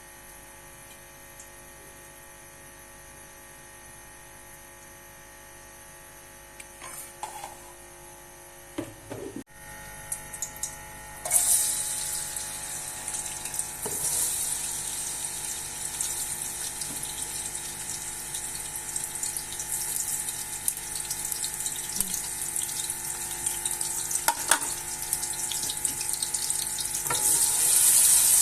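Water running from a kitchen tap, starting about eleven seconds in after a quiet stretch with a few light knocks, and growing louder near the end.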